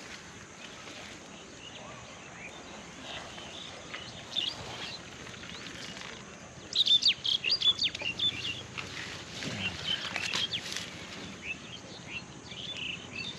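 Small birds chirping and twittering over outdoor background noise, with a quick run of loud chirps about seven seconds in.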